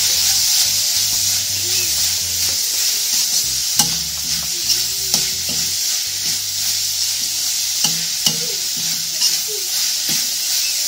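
Minced pork and curry paste sizzling in a pan as they are stir-fried, with a steady frying hiss and occasional sharp taps of the utensil against the pan.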